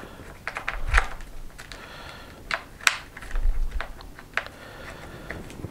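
Small, irregular plastic clicks and taps as a KST X08H micro wing servo is pressed and worked into its servo frame in the wing, with a few dull handling bumps.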